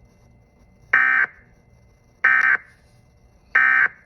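Emergency Alert System digital data bursts: three short, identical, buzzy screeches about a second and a half apart. They are the SAME end-of-message code sent three times, closing the weather alert broadcast.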